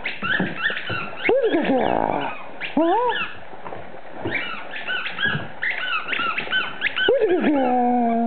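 Beagle and Boston terrier vocalizing in play: many short high-pitched squeaks and whines, with a few lower sliding cries. Near the end comes one long cry that drops in pitch and then holds.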